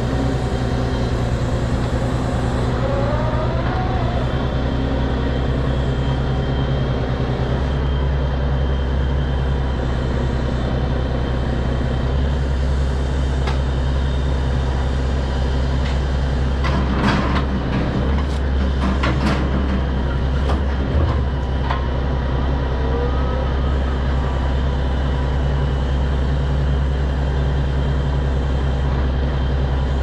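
Engine of a knuckleboom log loader truck running steadily under hydraulic load while the boom swings. About halfway through comes a short run of knocks and clatter as a log is set down on the truck bed.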